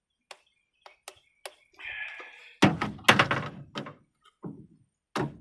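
Faint clicks, a brief scrape, then a cluster of loud knocks and a few more later as small parts are pulled off circuit boards and the boards are handled.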